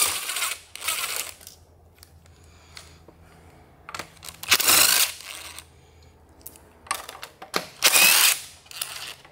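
Cordless DeWalt power driver with a 12 mm socket on an extension, run in three short bursts (one at the start, one about halfway, one near the end) to spin off the nuts holding a carburetor to an intake manifold.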